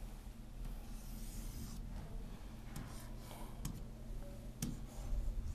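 Pen stylus drawing lines on an interactive display's screen: faint rubbing strokes with a couple of sharp taps about three and a half and four and a half seconds in, over a steady low electrical hum.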